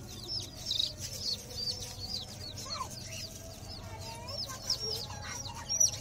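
Young bird chicks peeping: a steady run of short, high-pitched peeps, several a second.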